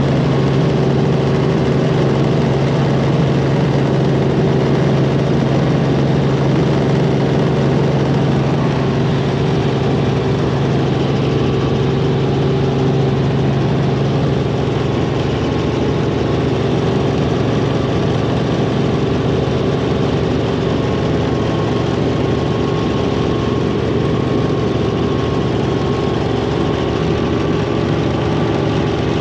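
Helicopter in flight: steady engine and rotor drone with a constant low hum.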